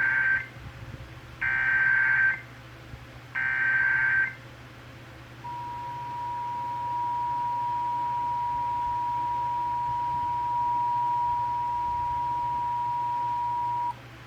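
Emergency Alert System tones: three SAME header data bursts, each about a second of harsh buzzing chirr, about two seconds apart. Then the two-tone EAS attention signal, held steady for about eight seconds, cuts off abruptly just before the alert message.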